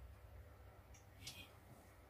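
Near silence: faint room hum, with a soft click and a brief faint hiss a little after a second in.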